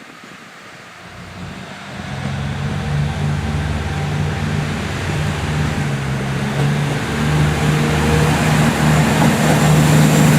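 A KiYa 95 'Doctor Tokai' diesel inspection railcar approaching. Its engine drone and running noise grow steadily louder from about a second in.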